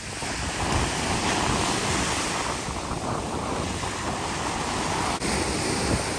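Gulf surf washing in and breaking at the shoreline, a steady rushing noise, with wind buffeting the phone's microphone.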